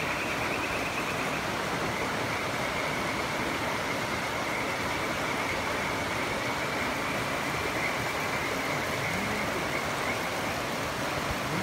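Steady rush of river water pouring over a low weir.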